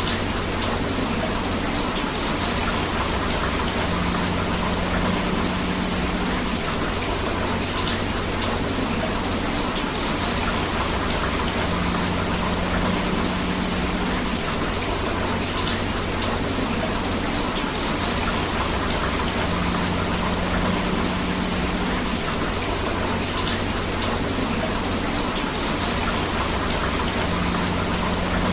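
Steady rain together with a rushing river: an even wash of falling and flowing water, with faint drip-like ticks now and then. The same short stretch repeats about every eight seconds.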